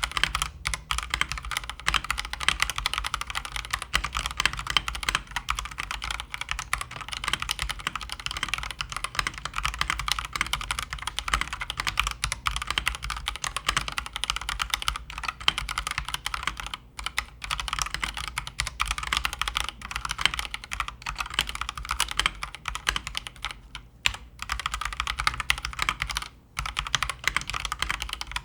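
Fast, continuous typing on an Akko mechanical keyboard with lubed stabilisers and foam dampening in the case and between the plate and circuit board. The key presses come as a dense, unbroken stream of clicks with a few short pauses.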